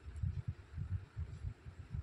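Irregular low thumps and rumble on the phone's microphone, several a second, over a faint background hubbub from a crowd.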